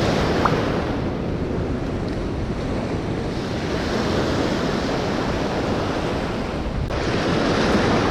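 Small waves breaking and washing in foamy surf at a river mouth, with wind buffeting the microphone; the hiss brightens abruptly about seven seconds in.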